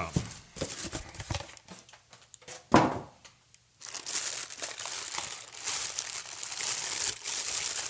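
Styrofoam box packaging handled and opened, with scattered scrapes and a sharp knock about three seconds in. After a short pause, the clear plastic bags wrapping a microscope crinkle continuously as it is handled and lifted out.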